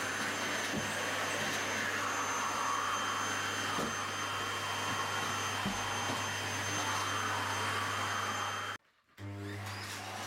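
Household vacuum cleaner running steadily, a motor hum under a broad hiss, with a few faint knocks as it is pushed about. The sound cuts out for a moment near the end and comes straight back.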